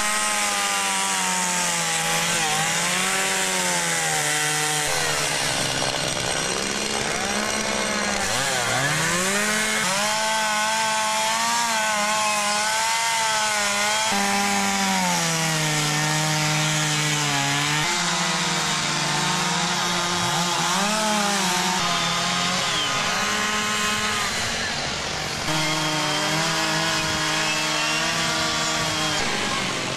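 Two-stroke chainsaws carving wood. The engine pitch rises and falls as the saws bite into the log and ease off, and at times two saws are heard at different pitches.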